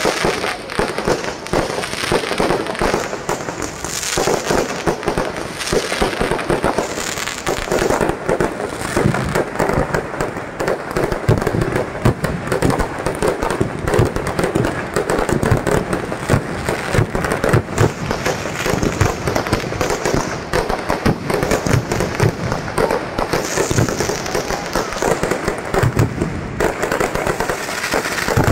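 Fireworks display: a dense, unbroken barrage of bangs and crackling as aerial shells burst and launch one after another.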